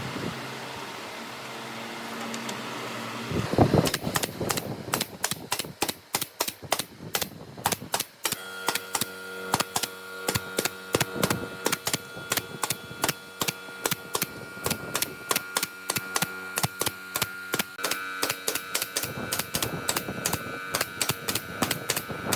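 A steady mechanical hum for about three seconds, then a long, irregular run of sharp clicks or taps, several a second, over a steady humming tone.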